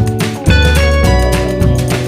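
Background music with a steady beat, bass and plucked guitar-like notes.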